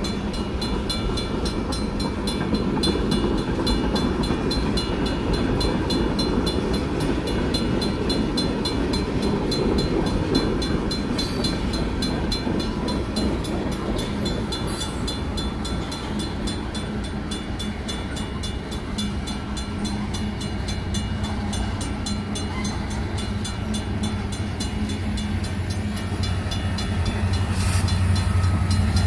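Freight cars rolling through a grade crossing, wheels rumbling and clacking over the rails as covered hoppers and tank cars pass, while the crossing's Safetran mechanical bell rings rapidly and steadily. From about two-thirds of the way in, a mid-train diesel locomotive's engine drone builds and grows louder as it reaches the crossing.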